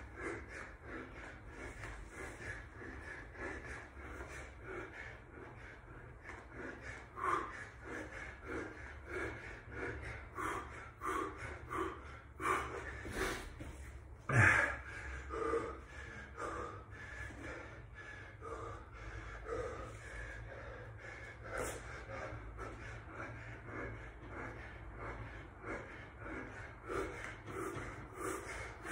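A man breathing hard from exertion during push-ups: short, forceful breaths in and out, roughly one to two a second, with one louder gasping breath about halfway through.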